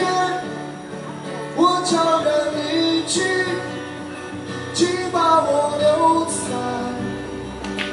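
Background music: a song with a singing voice over instrumental accompaniment.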